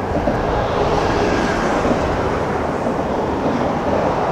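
Diesel-electric locomotives hauling a passenger train as it approaches, a steady engine drone mixed with a rushing noise.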